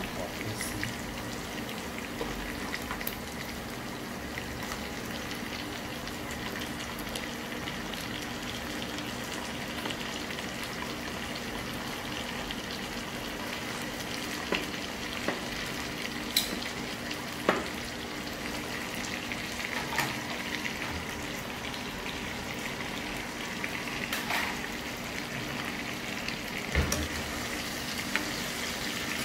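Chicken pieces, onions and garlic frying in hot oil in a nonstick wok, with a steady sizzle as they are sautéed and stirred. A few sharp clicks stand out in the second half.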